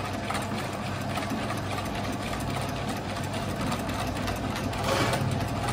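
Water poured in a steady stream from a kettle into a plastic bowl of thin flour-and-water mixture that is being whisked, with a brief louder swell about five seconds in. A steady low machine hum runs underneath.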